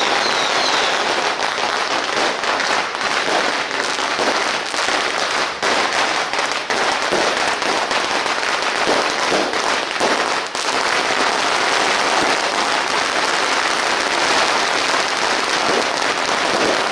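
Firecrackers going off in a continuous, rapid crackle of pops that runs without a break.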